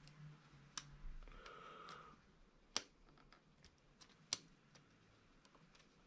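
Faint clicks and scraping of a small screwdriver working at a plastic wiring connector to release a crimped terminal from its housing. Three sharper clicks stand out, spaced about one and a half to two seconds apart.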